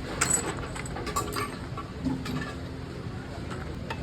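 Motorcycle engine running at a steady idle, with a few light metallic clinks and ticks over it.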